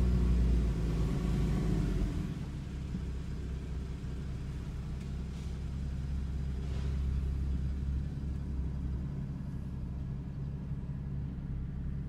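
Porsche Cayman GT4's flat-six engine running at low revs, heard from inside the cabin as the car creeps slowly off the lift runways. It is a steady low hum, a little louder for the first two seconds before settling.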